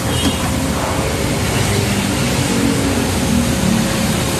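Car-wash machinery running steadily: a loud, even rushing noise with a faint steady hum underneath.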